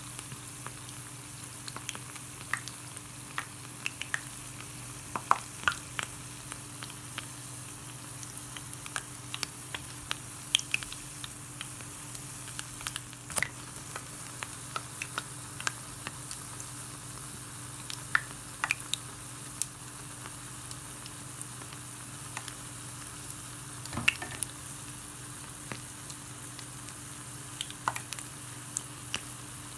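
Jalebi batter deep-frying in hot oil: a steady sizzle with frequent sharp pops and crackles. A faint steady hum runs beneath.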